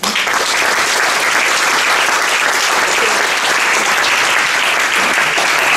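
Audience applauding: dense, even clapping that breaks out all at once and holds steady.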